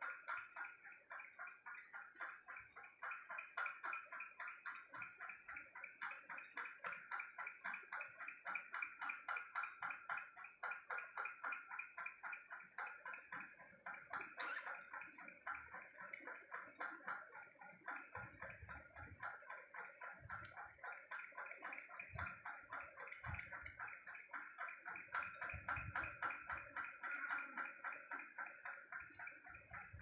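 Budgies feeding beak to beak: a fast, steady, rhythmic gurgling tick that repeats a few times a second.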